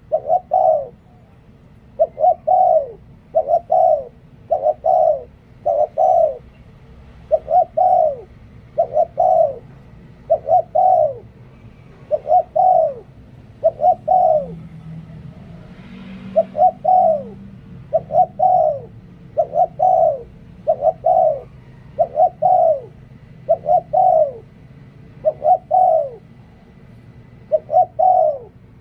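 A spotted dove cooing over and over, short coo notes in groups of two or three about every two seconds. This is the decoy-bird song in the cadence Thai keepers call liu tan.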